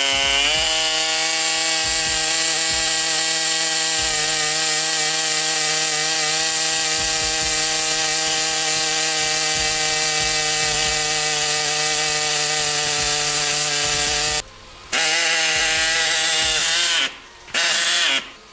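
High-speed handheld power tool spinning up and running steadily, cutting into the metal of a damaged car body. It stops briefly about fourteen seconds in, runs again, and gives one last short run near the end.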